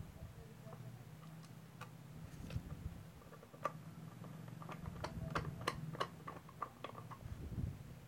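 Light plastic clicks and taps as a switch-socket faceplate is pressed onto its plastic back box and handled. The clicks are sparse at first and come in a quick cluster from about three to seven seconds in, over a steady low hum.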